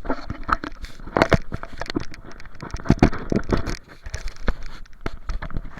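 Irregular knocks, clicks and scraping of hand tools and parts being handled, as the fuel pump is being taken out.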